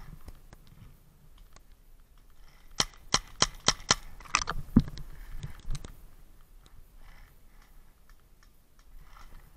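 Paintball marker firing a quick string of about six or seven sharp pops, roughly three a second, followed by a single duller thump.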